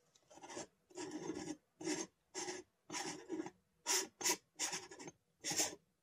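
Repeated rasping rubs, about two a second, as a hand grips and twists the geared SLR Magic Rangefinder variable diopter to unscrew it from the anamorphic scope.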